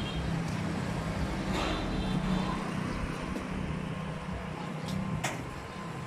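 A motor vehicle engine idling steadily, with a sharp short knock about five seconds in.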